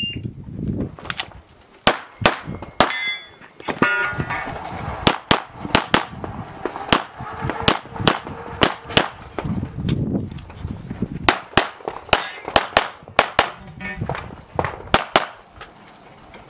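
A shot-timer start beep, then rapid strings of 9mm pistol fire, some thirty shots with short pauses between strings. Steel targets ring when hit, most clearly about three to four seconds in.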